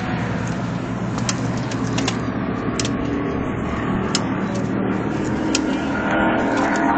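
A few sharp separate clicks and knocks, roughly one a second, from hands working at a stock car's wheel, over a steady low rumble.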